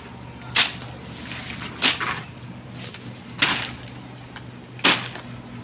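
Grass-cutting blade slashing through tall grass and weeds by hand: four sharp strokes, about one and a half seconds apart.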